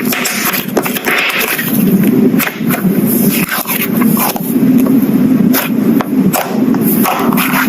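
Slime being worked by hand: steady squishing with many small clicks and pops throughout.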